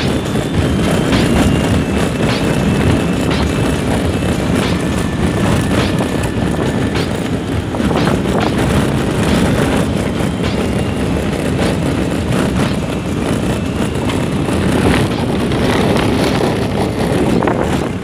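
Mercedes-Benz car driving over a rough gravel desert track, heard from inside the cabin: steady engine and tyre rumble with scattered knocks and jolts from the uneven ground.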